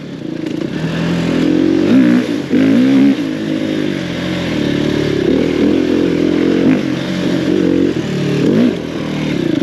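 Enduro dirt bike engine being ridden hard, revving up and falling back again and again as the throttle is opened and rolled off.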